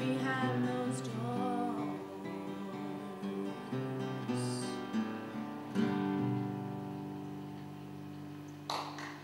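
The closing bars of a solo acoustic guitar song. A woman sings a last line over picked acoustic guitar notes, then the final guitar notes ring out and slowly fade. Clapping starts just at the end.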